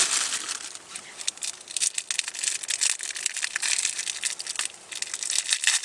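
Wrapping on a Camembert cheese being torn open and unwrapped: dense, irregular crinkling and crackling, with a brief pause near the end.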